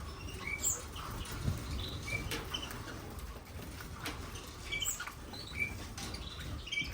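North Dutch frill canaries fluttering their wings, with scattered short chirps and small clicks.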